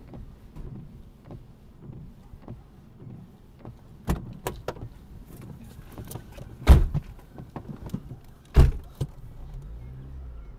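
Knocks and thuds against a car's bodywork during a struggle on and around the hood, with four sharp, loud hits among many smaller knocks.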